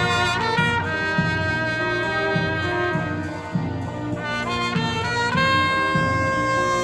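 Brass marching band playing a melody with held chords over a steady low beat, with trumpets, trombones and saxophones; a new held chord comes in about five seconds in.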